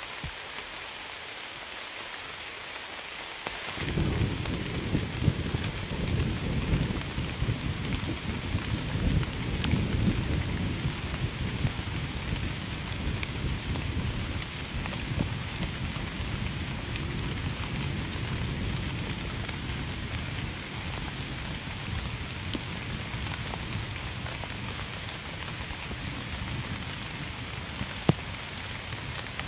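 Steady rain falling, with a low rumble of thunder that begins suddenly about four seconds in, is strongest over the next several seconds and slowly dies away while still rolling near the end. A few sharper drip ticks stand out over the hiss, the loudest one near the end.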